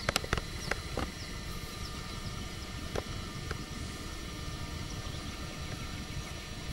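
Steady low rumble of a vehicle on the move, with a few sharp clicks and knocks in the first second.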